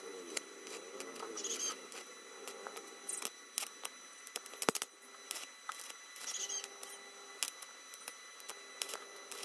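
Stick welder tack-welding a steel bar onto a cart frame: short crackling arc strikes and scattered sharp clicks, irregular, with one louder click about halfway through.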